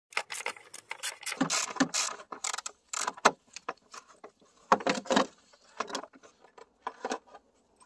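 Ratchet wrench clicking in quick irregular bursts as its 13 mm socket on an extension backs out the battery hold-down bracket bolt. The clicking is densest in the first few seconds, with a second burst around the middle and a few scattered clicks near the end.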